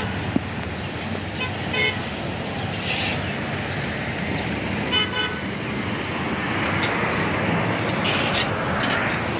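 Steady rushing seaside ambience with two short pitched toots, one just under two seconds in and one about five seconds in.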